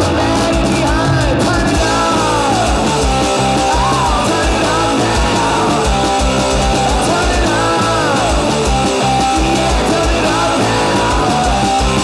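Loud garage rock song with distorted electric guitar, playing without a break.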